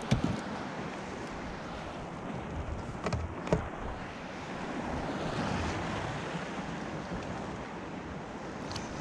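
Wind on the microphone over seawater lapping around a kayak, with a few short knocks of gear on the hull near the start and about three seconds in.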